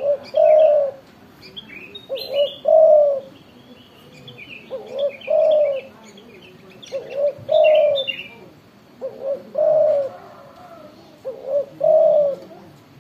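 Spotted dove cooing over and over: about six phrases, each a couple of short coos running into one longer coo, every two seconds or so. Small birds chirp faintly and high in the background for the first two-thirds.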